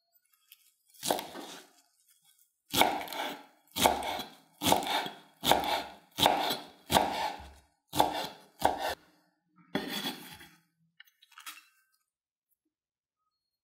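Chef's knife chopping fresh coriander on a bamboo cutting board: about ten sharp chops, roughly one a second, growing fainter near the end.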